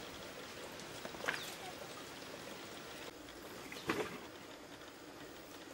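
Shallow rocky stream trickling, with two brief sharp sounds about a second and a half and four seconds in.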